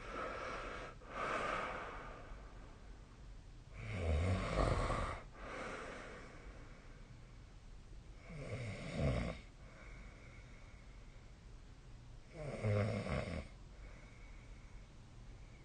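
A sleeping person snoring: four snoring breaths about four seconds apart, each a low buzzing vibration with breathy noise, with quieter breath sounds between them. The snore about four seconds in is the loudest.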